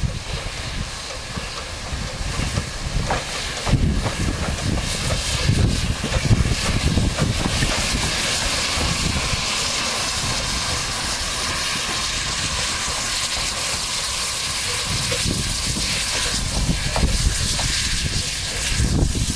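Narrow-gauge steam locomotive letting off steam with a steady hiss that swells about four seconds in, while wind buffets the microphone with a low rumble.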